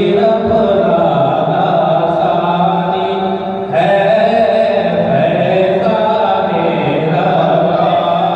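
A man's voice singing a devotional Urdu kalaam (naat) into a microphone, in long drawn-out, ornamented lines with no drums. A new phrase comes in sharply about four seconds in.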